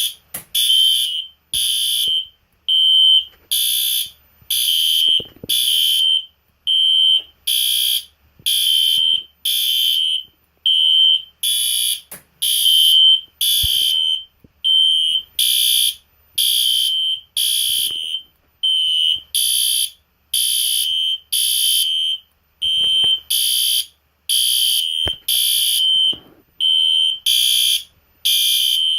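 System Sensor SpectrAlert Classic and SpectrAlert Advance fire alarm horn-strobes sounding together: a high-pitched electronic horn tone pulsing on and off about once a second, so loud.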